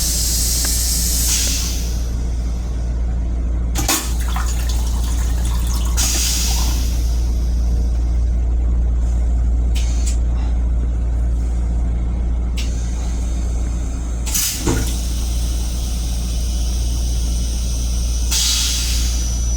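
Metro-North M7 railcar running with a steady low hum, broken several times by short hissing rushes of air or water.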